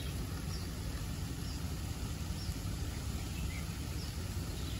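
Steady low outdoor background rumble with a few faint, short bird chirps scattered through it.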